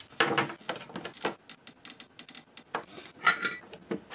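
Irregular small clicks and clinks of needle-nose pliers and wires knocking against the plastic case and parts of a Commodore 128 power supply as a wire is worked onto a fuse eyelet for soldering, with the sharpest clink about three seconds in.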